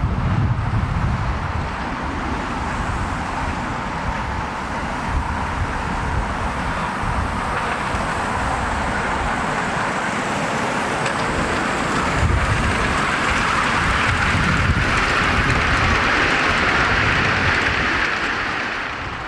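Miniature live-steam locomotive running past on its track. The hiss and rumble grow louder as it nears and drop away suddenly near the end.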